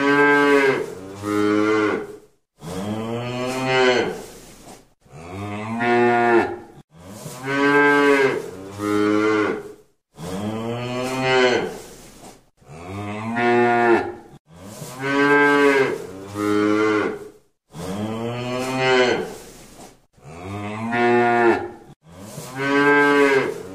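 Cow mooing over and over, a long moo every two to three seconds, many of them in two parts.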